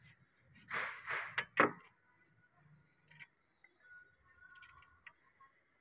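The last few strokes of a hacksaw through a CPVC pipe, then a sharp clack about a second and a half in, followed by a few faint small clicks of plastic pipe and fittings being handled.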